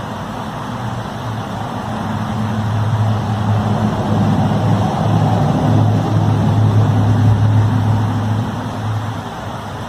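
A low, droning hum over a noisy background. It swells gradually over several seconds and fades near the end. This is the kind of sound presented as an unexplained 'strange noise in the sky'.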